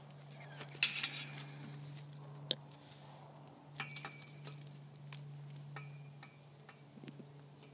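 Metal tie-out chain clinking and rattling as a coonhound moves on it, in scattered sharp clinks, loudest about a second in. A steady low hum runs underneath.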